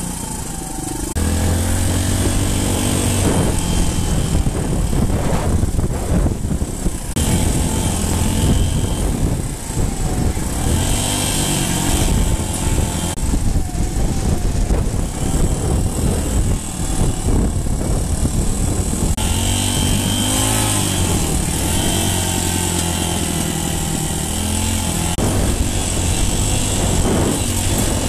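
Dirt bike engine running under throttle on a dirt trail, its pitch rising and falling with throttle and gear changes as the bike speeds up. It gets louder about a second in as the throttle opens, with a steady high hiss of wind over it.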